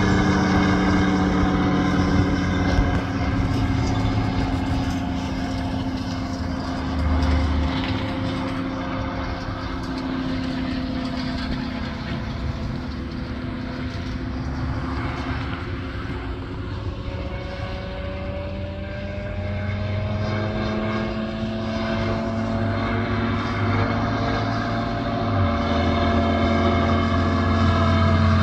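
Phantom ultralight's engine and propeller droning steadily as it flies around overhead. The drone fades and drops in pitch as the plane moves off, then grows louder and rises in pitch as it comes back close near the end.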